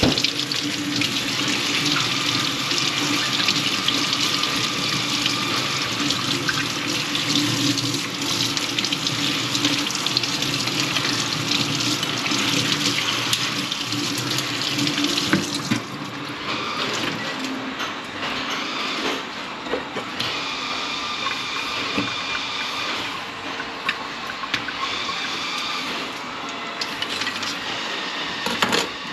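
Tap water running steadily into a sink as fish are rinsed and cleaned. About halfway through, the sound drops and turns uneven, coming and going.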